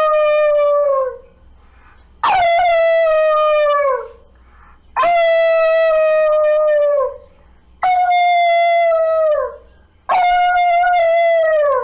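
A child's voice imitating a wolf howl: five long howls, each rising sharply at the start, holding a steady pitch and dropping away at the end, with short breaths between them.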